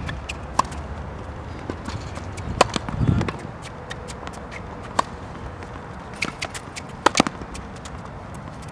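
Tennis rally on a hard court: a tennis ball cracking off strings and bouncing, with running footsteps between. The sharp hits come every couple of seconds, two in quick succession near the end.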